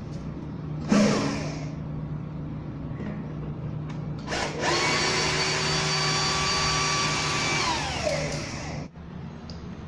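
A knock about a second in, then water rushing through the basin's bottle trap and waste pipe for about four seconds, with a steady whistle that slides down in pitch just before it cuts off; the water is run to test the leaking trap.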